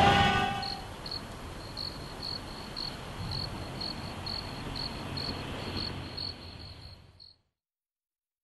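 Crickets chirping steadily, about two short chirps a second, over a faint low hum, after the sound of a small car's engine dies away in the first second. Everything cuts off abruptly near the end.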